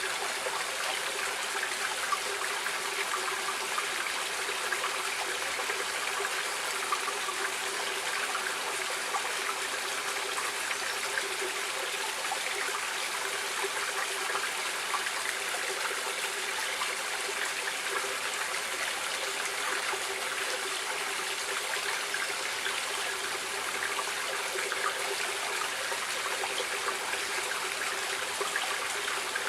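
Stream water flowing and splashing over rocks, a steady unbroken rush with fine bubbling and trickling detail.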